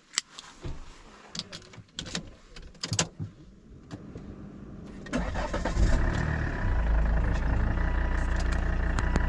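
A few clicks and knocks, then about five seconds in a car engine starts and settles into a steady idle, cutting off abruptly at the end.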